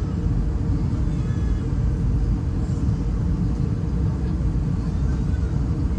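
Steady low rumble of an Airbus A320-211 in flight, its CFM56 engines and the airflow heard from inside the passenger cabin, unbroken throughout.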